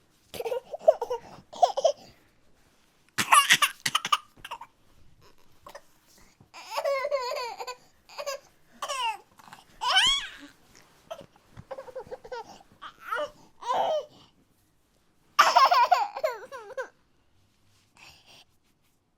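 A young child crying and sobbing in broken outbursts of wavering, high-pitched voice, each a second or two long with catching breaths between, trailing off near the end.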